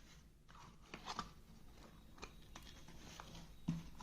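Small cardboard medicine box being handled and opened by hand: faint crinkling rustles and a few light clicks, with a sharper knock near the end.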